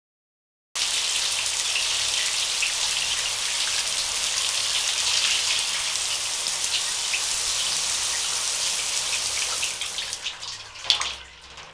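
Shower water spraying steadily, cutting in suddenly; near the end it trails off into a few drips and sharp knocks.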